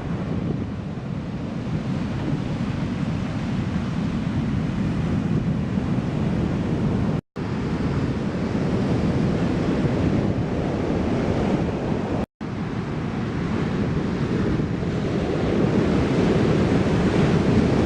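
Ocean surf breaking and washing on the beach, with wind buffeting the microphone; a steady rush of noise, cut off twice for an instant about 7 and 12 seconds in.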